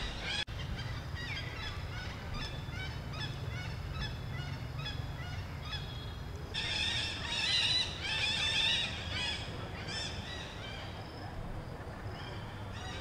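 A group of macaque monkeys giving many short, high-pitched squealing calls, one after another, growing louder and denser for a couple of seconds in the middle.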